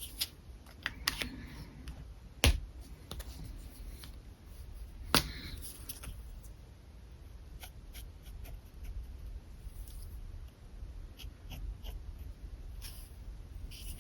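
Pen sketching on paper: scattered short scratchy strokes and light ticks, with two louder sharp clicks about two and a half and five seconds in.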